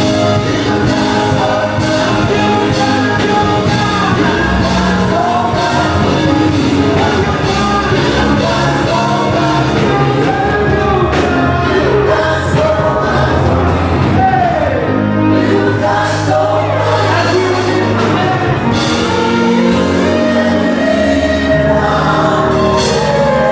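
Worship music: singing over instrumental accompaniment with a steady beat, continuous and loud.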